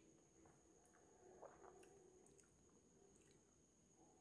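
Near silence, with a few faint soft mouth clicks from chewing slices of green mango.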